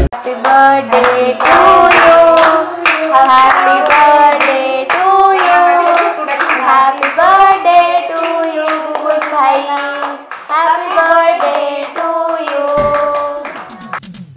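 A voice singing a tune, with hands clapping along.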